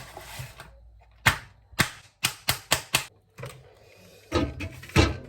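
A run of sharp clicks and knocks from a microwave ready meal and the microwave being handled: single clicks, then four quick taps, then heavier knocks near the end.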